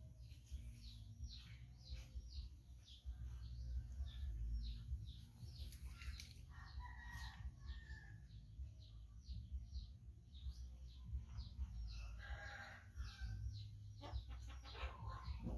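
Chickens: a rooster crows twice, about seven and twelve seconds in, over a steady run of short, high, falling chirps several times a second. A low steady rumble runs underneath.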